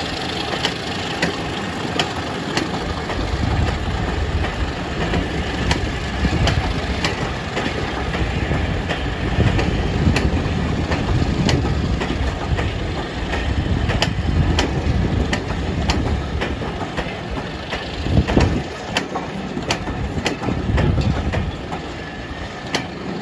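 Diesel-hauled train running on the line: a heavy low engine rumble under repeated sharp clicks of the wheels over rail joints.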